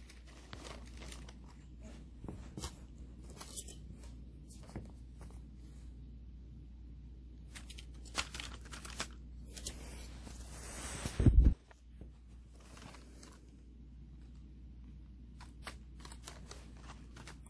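Small plastic clicks and scrapes of N-scale model train cars being handled, set on the track and coupled together by hand. A loud low thump a little past the middle stands out above the clicking.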